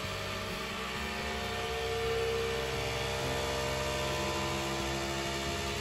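Flashforge Adventurer 5M 3D printer running its vibration calibration: the motors shake the print head, making an extremely noisy hum whose pitch changes in steps, about 2 and 3 seconds in, over the steady whir of its fans.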